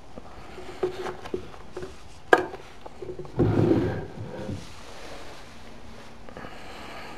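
Wooden drawer of a chest of drawers being handled: a few light knocks and one sharp knock, then the drawer sliding shut along its wooden runners with a low rumbling scrape that lasts about a second.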